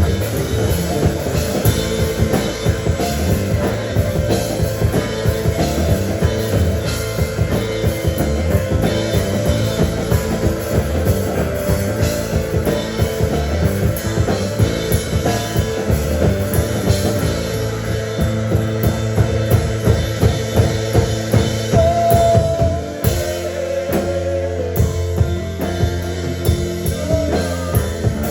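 Live rock band playing an instrumental passage: a steady drum kit beat under bass and guitar. Near the end the drum hits drop away, leaving held low chords ringing.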